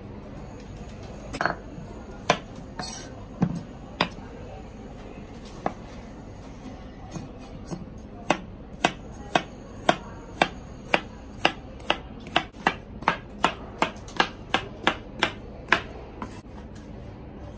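Chef's knife chopping cucumber on a wooden cutting board: a few scattered knocks at first, then from about halfway a steady run of cuts, about two a second and quickening slightly, that stops shortly before the end.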